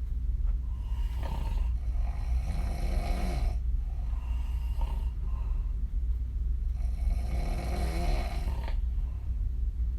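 A woman snoring through an open mouth, with lip blowing: two long, strong snoring breaths about five seconds apart, each with a shorter, weaker breath before it.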